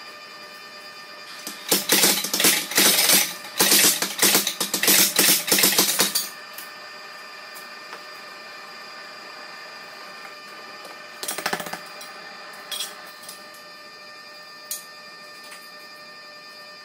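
Metal tools and steel clinking and clattering quickly and irregularly for about four and a half seconds as they are handled on a forge bench, then a shorter clatter about halfway through and a few single clicks. A steady high whine runs underneath.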